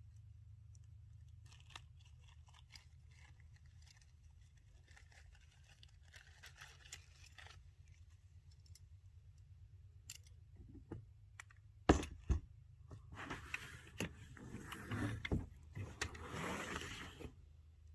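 Shed parts and hardware being handled: scattered light clicks and rattles, one sharp knock about twelve seconds in, then several seconds of scraping and rustling, over a steady low hum.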